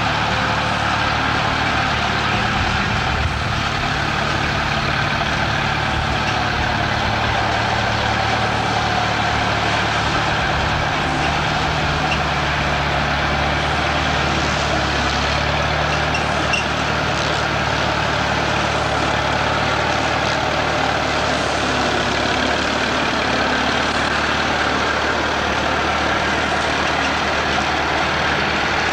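Allis-Chalmers Model C tractor's four-cylinder gasoline engine running steadily while it drives a belly-mounted mower through the grass.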